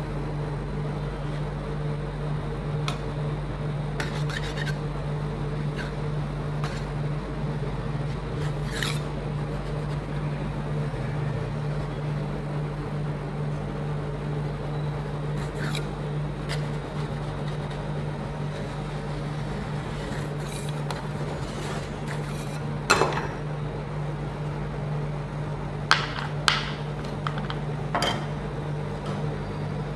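Steady hum of a rolled-ice-cream cold-plate machine's refrigeration unit, with metal spatulas scraping and tapping on the frozen steel plate; several sharper metal knocks come in the second half.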